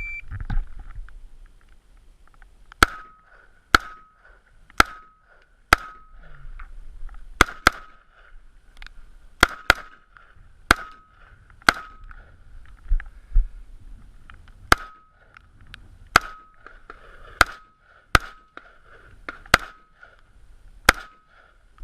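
A short electronic shot-timer beep, then a string of gunshots in practical shooting competition, over a dozen shots roughly one a second. Each shot is followed by a brief ringing tone.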